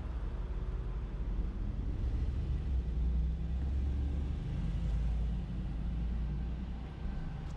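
Low rumble of passing road traffic in a city street, swelling through the middle and easing off near the end.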